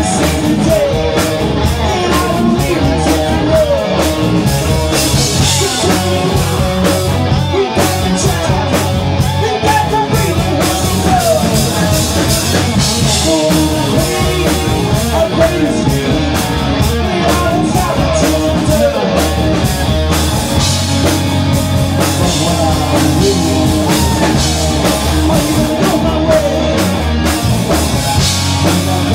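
Live rock band playing loudly: electric guitar, bass guitar and drum kit, with a male singer singing over them.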